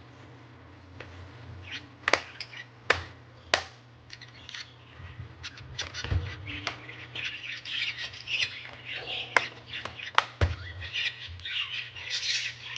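Sharp plastic clicks and snaps from a Dell Vostro 3591 laptop's case and parts being handled during disassembly, a few spaced clicks at first, then a denser run of scratchy clicking and rustling from about five seconds in.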